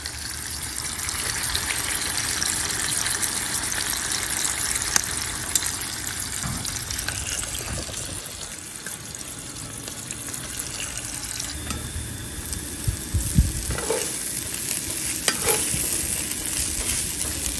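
Bacon and then shredded hash browns frying in a skillet on a camp stove, a steady sizzle, with a spatula scraping and stirring in the pan a few times near the end.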